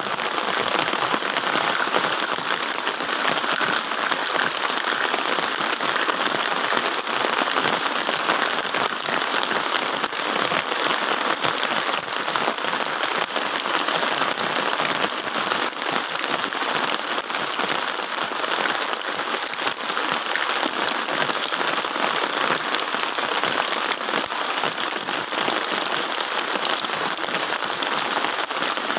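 Steady rain falling on gravel and foliage: an even, unbroken hiss of drops.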